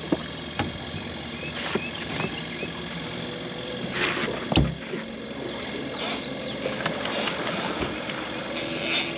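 A boat's motor idling with a steady hum, under scattered knocks on the boat, a heavier thud about halfway, and short bursts of rushing noise in the second half.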